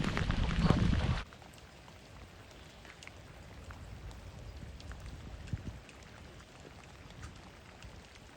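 Rain in a typhoon. For the first second there is a loud rough rush, then it drops abruptly to a quieter steady patter of rain with scattered faint drop ticks.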